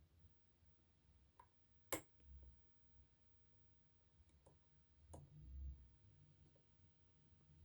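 Lock picking in a pin-tumbler lock under heavy tension: a few faint, sparse metallic clicks of the pick and pins, one sharper click about two seconds in, over near silence.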